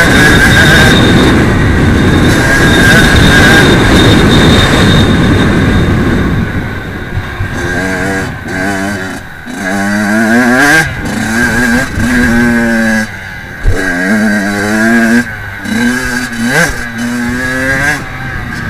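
Kawasaki KX85 two-stroke motocross engine held at high revs under heavy wind and track noise for about six seconds. After that it revs up and down over and over as the throttle is opened and shut, with a single sharp thump about two-thirds of the way through.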